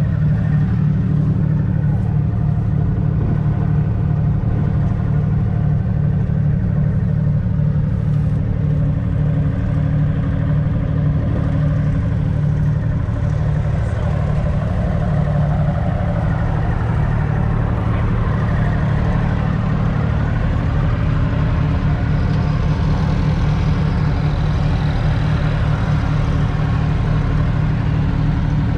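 Ford 6.2-litre six-cylinder diesel engine of a 1970 County 1004 Super Six tractor idling steadily, heard up close.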